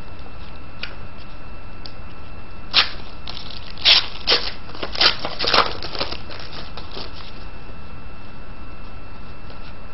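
Foil trading-card pack being torn open and its wrapper crinkled as the cards are pulled out: a cluster of sharp crackles and rustles between about three and seven seconds in, over a faint steady hum.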